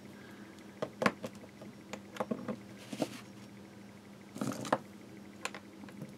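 Handling of small watercolour paint tubes on a desk: scattered light clicks and knocks as tubes are picked up and set down, the sharpest about a second in, with a short rustling cluster around four and a half seconds. A faint steady hum sits underneath.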